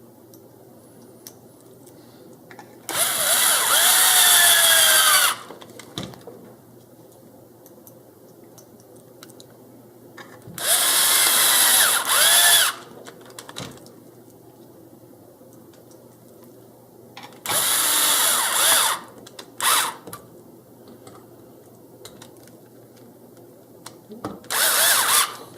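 Cordless power driver running in four separate bursts, its motor whine bending in pitch during each run, as it drives M4 x 16 screws that fix a bumper to an RC truck's chassis.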